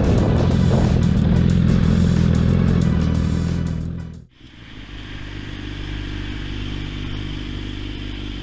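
Motorcycle engine running, heard from the rider's position. About four seconds in it cuts off abruptly and a quieter motorcycle engine idles steadily.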